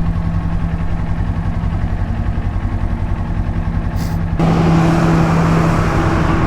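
Kawasaki Ninja 400's parallel-twin engine idling steadily with an even pulse. About four seconds in, a louder rushing noise joins it while the engine note holds the same pitch.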